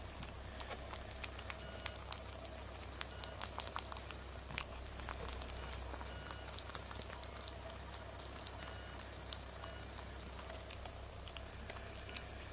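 Quick, irregular small clicks and ticks, several a second, as a baby monkey picks through grey fur with its fingers and mouth. A faint steady hum lies under them.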